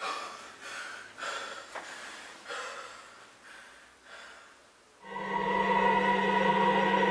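A man breathing heavily in a few short, noisy breaths about a second apart that die away. About five seconds in, music starts with a held, unchanging chord.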